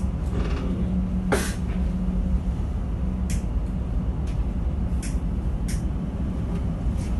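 Steady low engine drone with a hum, as aboard a vessel, broken by about six short hissing splashes of sea spray, the longest about a second in.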